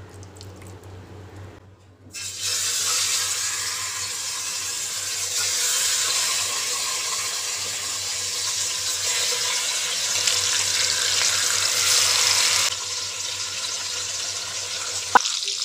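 Marinated chicken leg pieces sizzling as they go into hot sesame oil in a pot: a steady frying hiss that starts about two seconds in and eases a little near the end.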